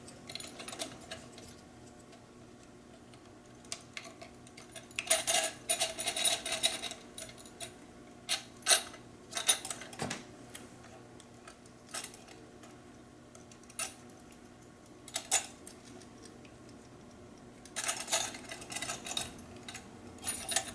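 Metal loop elements and loose screw hardware of a GE 24792 attic antenna clinking and rattling as the parts are handled and fitted together. Several short bursts of clinking, with single clicks between them.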